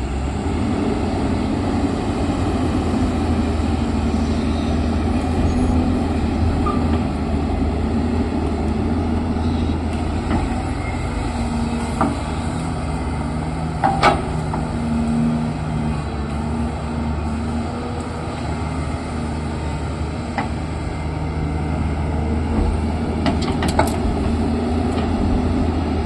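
Heavy earthmoving machine's engine running steadily under load, with a few sharp metallic clanks about halfway through and again near the end.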